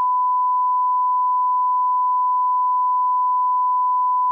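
Colour-bar test tone: one loud, steady beep held at a single unchanging pitch.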